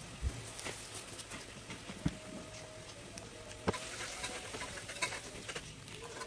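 Rolled magazine-paper strips being handled and pressed flat on a wooden table: soft paper rustling with a few light taps.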